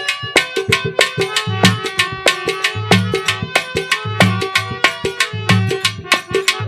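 Instrumental interlude of a folk devotional song: a hand drum plays fast strokes with deep bass beats about every second and a bit, under steady held melody notes, with no singing.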